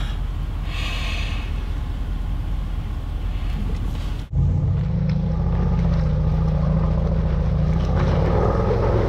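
Range Rover Sport rumbling steadily from inside the cabin, then, after a cut about four seconds in, its engine running louder and steady as it climbs a slope off-road.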